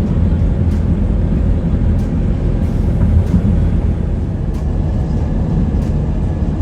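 Steady low rumble of a moving vehicle, with a faint tick repeating about every second and a quarter.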